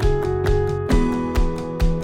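Background music: a light instrumental track with plucked guitar-like notes over a steady beat.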